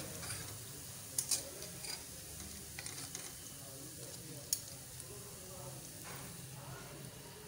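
Faint sizzle of hot frying oil as pakoras are scooped out with a wire skimmer, with a few sharp clinks of the skimmer against the metal karahi, the loudest about a second in and again midway.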